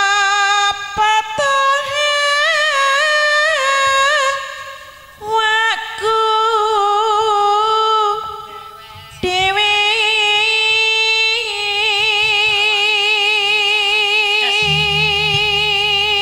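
Music: one high voice singing long, held phrases whose pitch wavers and slides, pausing briefly twice.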